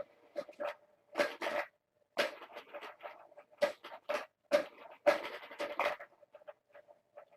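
Kittens moving and playing: irregular scratches and soft patter of claws and paws, some in quick flurries.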